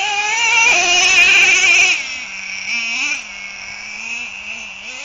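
Nitro (glow-plug) engine of a remote-control truck revved hard from a steady buzzing idle, its pitch jumping up and held high for about two seconds before dropping back to idle. A shorter, smaller rev follows about three seconds in.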